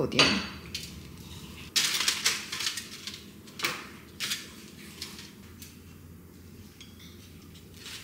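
Dishes and cutlery clattering, a cluster of sharp clinks and knocks for a few seconds, then fainter scattered clinks.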